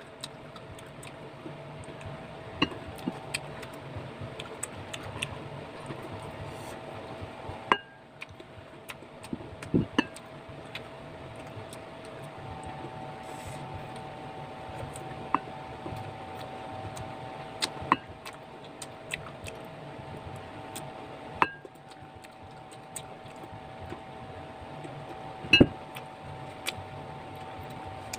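Sharp clinks of ceramic bowls every few seconds as green mango slices are picked up and dipped, with chewing, over a steady background hum.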